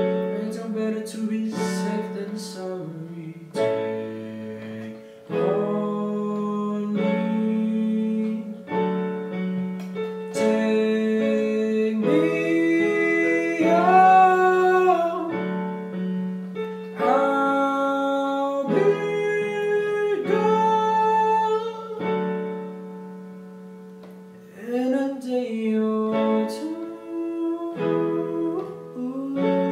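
Man singing a slow arrangement over guitar accompaniment, with long held notes that bend in pitch. The music thins out briefly about four seconds in and again near the twenty-three second mark.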